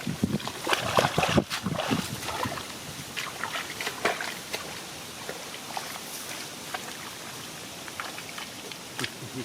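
Water splashing and sloshing in a shallow flooded field, loudest and busiest in the first two seconds, then settling to scattered small splashes over a steady hiss.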